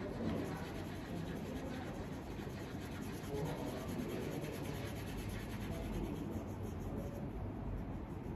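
Yellow crayon rubbed back and forth on paper in quick, steady scribbling strokes as an area is coloured in.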